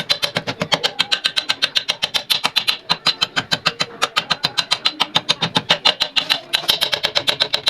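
Old sewing machine running steadily: a rapid, even clatter of about eight to nine mechanism strokes a second.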